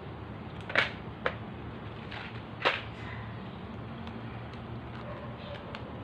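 A few sharp clicks and taps of small parts being handled, three louder ones in the first three seconds and fainter ticks after, over a steady low hum.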